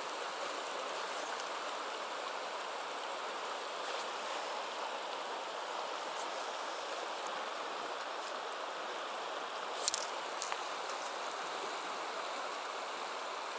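A river flowing over a stony riffle: a steady rush of water. A brief cluster of sharp clicks stands out about two-thirds of the way through.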